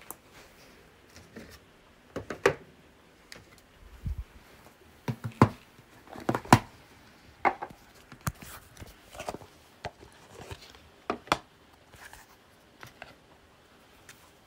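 A deck of oracle cards being handled and shuffled: scattered sharp snaps and taps of card stock, some in quick clusters, the loudest about midway.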